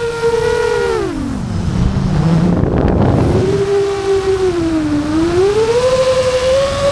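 FPV quadcopter motors whining, the pitch dropping steeply about a second in as the throttle comes off, with a rush of air noise at the low point, then climbing back, dipping once more and rising again as the throttle is worked through the manoeuvre.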